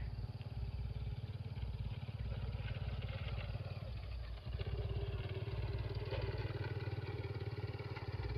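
A small engine running steadily with a fast, even pulse, its note shifting slightly about four and a half seconds in.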